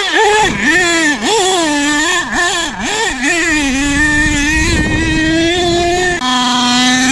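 HPI Savage nitro monster truck's small two-stroke glow engine revving up and down in quick throttle blips, then holding a steady high note. The note drops to a lower steady pitch about six seconds in.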